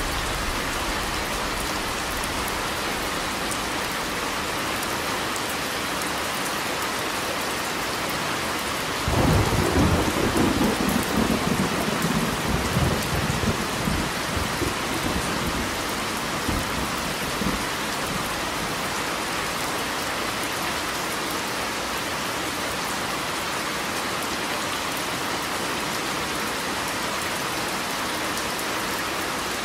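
Steady rain falling, with a sudden thunderclap about a third of the way in that rumbles on for several seconds before fading away.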